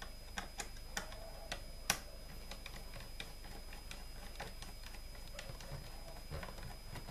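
Small screwdriver turning out the screws of a laptop's plastic back cover: scattered light clicks and ticks as the bit works the screw heads, with a sharper click about two seconds in.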